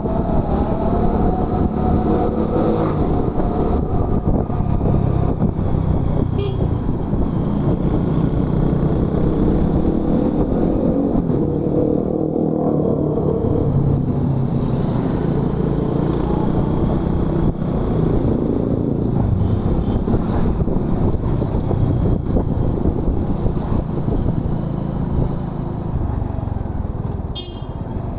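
Motorcycle engine running steadily while riding, its pitch shifting gently with throttle, over a rushing haze of wind and road noise.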